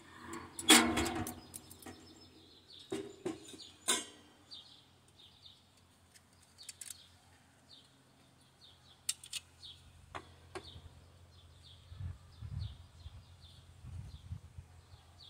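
Stainless steel camping stove parts clanking and scraping as they are handled and fitted together, with a ringing metal clatter about a second in and scattered knocks after. A bird chirps repeatedly in the background.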